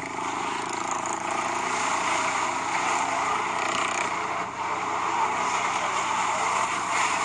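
Steady street traffic noise from passing vehicles, picked up by a phone's microphone.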